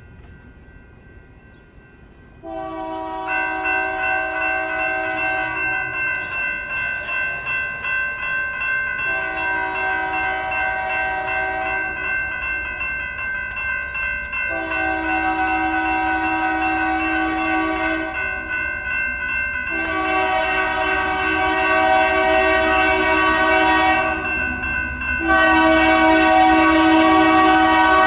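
Union Pacific locomotive's multi-chime air horn blowing five long blasts for a grade crossing, the first starting a few seconds in, over the crossing's electronic bells ringing steadily. A low rumble of the approaching train builds near the end.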